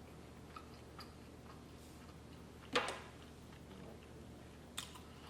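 A person chewing lamb steak close to the microphone: soft, quiet mouth clicks at a loose, regular pace, with a sharper, louder smack about two-thirds of the way through and a smaller one near the end.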